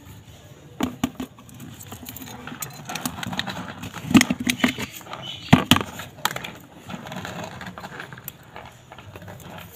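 Dry cattle-feed pellets rattling and clicking in a plastic bucket as a hand stirs a white powder into them, with a few sharper knocks along the way.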